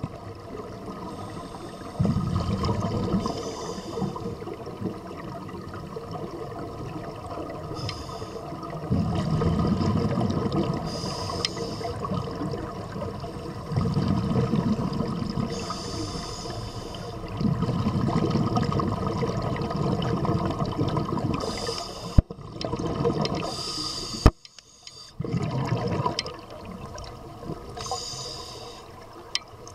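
Scuba regulator breathing heard underwater: a short hiss on each inhale and a rumbling burst of exhaled bubbles lasting two or three seconds, repeating every few seconds. Two sharp clicks come about two-thirds of the way through.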